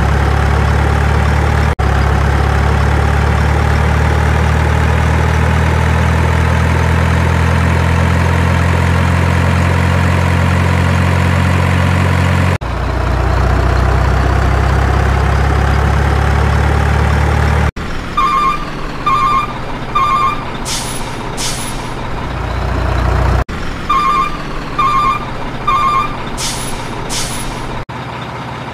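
Heavy truck sound effects: a truck engine running with a slowly rising pitch for the first two-thirds, broken by sudden edit cuts, then reversing beeps in groups of three, with short air-brake hisses in between.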